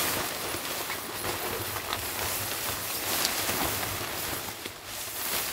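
Nylon fabric of a large pop-up tent rustling and crinkling as it is shaken out and pulled open by hand.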